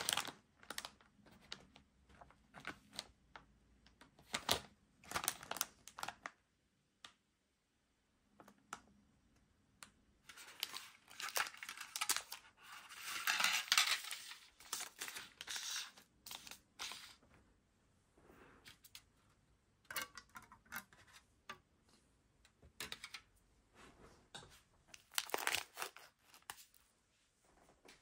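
Plastic candy-kit packaging crinkling and tearing as it is opened by hand, with scattered crackles from the plastic tray and foil packets being handled. The longest stretch of rustling and tearing comes a little under halfway through, with a shorter burst near the end.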